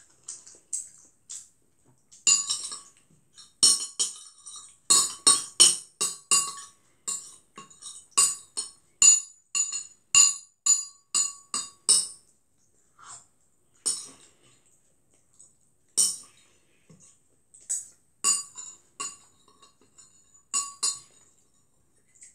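Metal spoon scraping and clinking against a ceramic plate, many quick ringing clinks in clusters, busiest in the first half and sparser with pauses after, as leftover noodle bits are scraped up off the plate.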